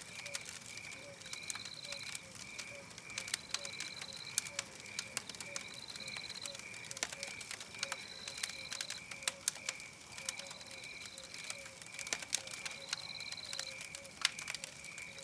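Campfire crackling with irregular sharp pops, over a steady night-ambience layer of pulsing chirps and a short high trill that repeats about every two seconds.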